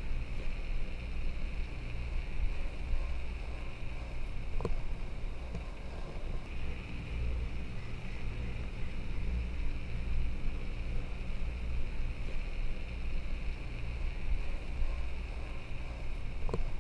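Wind rumbling on the microphone of a camera riding a moving chairlift, with a steady hiss above it and a faint click about four and a half seconds in and again near the end.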